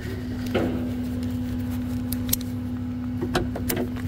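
Steady idle of a truck engine, with a few sharp metallic clinks from the steel hook on the end of a tow truck's winch cable being handled. There is one clink about half a second in, another near the middle and a small cluster near the end.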